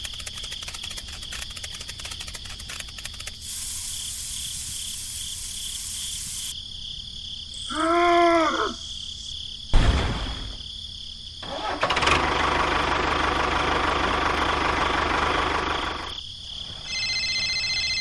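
A string of separate sound effects: rapid clicking, then a hiss, a short pitched call that rises and falls, a sharp thump, a long rushing noise, and steady electronic tones near the end.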